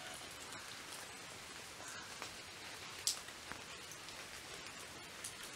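Faint steady outdoor hiss with scattered small ticks and one sharper click about three seconds in.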